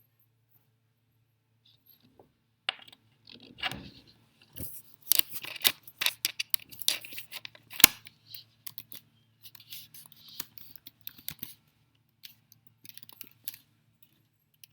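Irregular clicking, rattling and rustling of small hard objects being handled, with one sharp click about eight seconds in.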